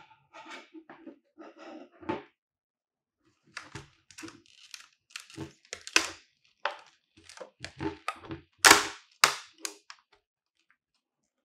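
Stiff clear plastic blister pack crackling, snapping and popping as it is cut with scissors and pried open by hand: a run of sharp cracks with a short pause early on, loudest near the end, stopping about ten seconds in.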